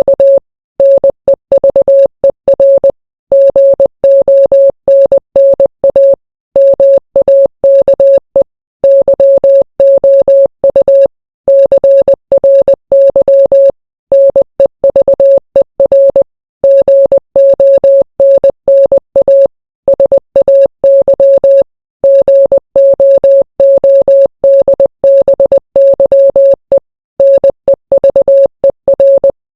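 Morse code sent as a single steady mid-pitched beep keyed rapidly on and off in dots and dashes, with brief gaps between letters and longer pauses between words.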